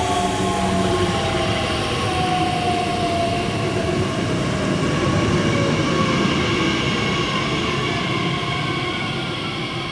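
Bombardier Talent 2 (class 1442) electric multiple unit running along the platform and slowing, its traction motors giving a whine of several tones that slowly falls in pitch over a steady rumble of wheels on rail.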